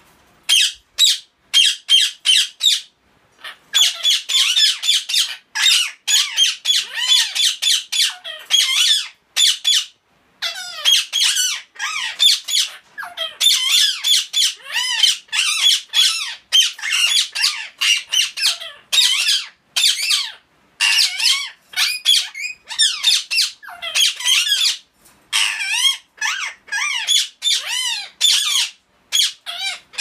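Blue Indian ringneck parakeets squawking loudly in rapid, harsh runs of calls, with only brief pauses.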